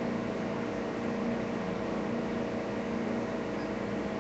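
Steady mechanical hum and hiss with several steady tones in it.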